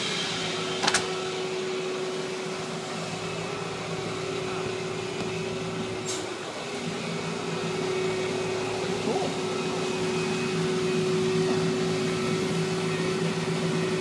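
Diesel engines of road-paving machinery, a semi-tractor with a dump trailer and an asphalt paver, running steadily as a constant hum with a steady tone. Two sharp clicks come through, about a second in and about six seconds in.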